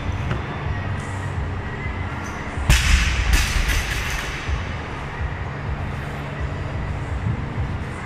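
Loaded barbell with rubber bumper plates dropped onto the lifting platform: a loud crash about two and a half seconds in, then a second impact as it bounces about half a second later. A steady low rumble runs underneath.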